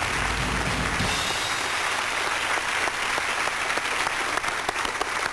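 Studio audience applauding steadily, individual claps standing out more toward the end.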